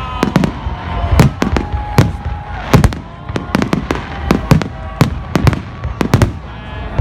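New Year's Eve fireworks going off in a rapid barrage, several sharp bangs a second, with drawn-out whistling tones over them.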